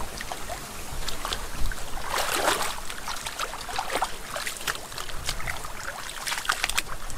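Shallow muddy water splashing and sloshing as hands grope through it and bare feet wade, with wet mud squelching. There are many short splashes and one longer slosh about two seconds in.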